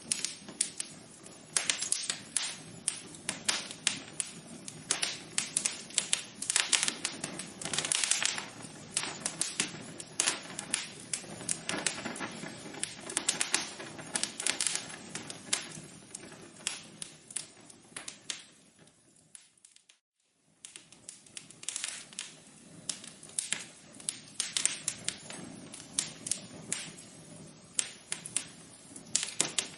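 Wood fire crackling: a steady stream of irregular sharp pops and snaps over a low hiss. About two-thirds of the way through, the sound fades out to silence for about a second and then fades back in.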